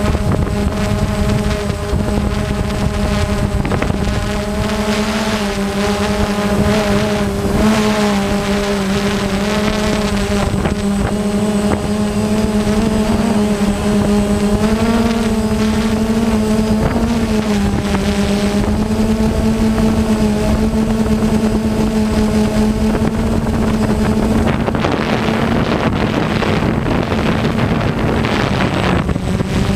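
Camera drone's motors and propellers humming steadily, heard from the drone itself, the pitch rising and dipping slightly a few times. A rushing wind noise grows over the hum near the end.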